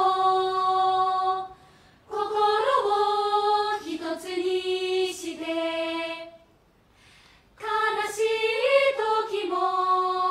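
A girls' choir singing a cappella, holding long notes in phrases broken by short pauses about a second and a half and six and a half seconds in.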